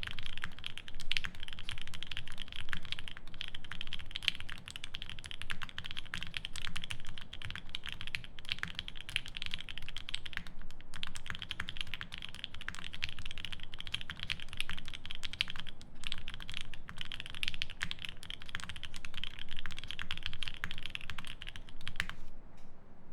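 Fast, continuous typing on a 7V mechanical keyboard with lubed C3 Banana Split switches on a polycarbonate plate, GMK keycaps and plate foam: a dense run of keystroke clacks with brief pauses, thinning out about a second before the end.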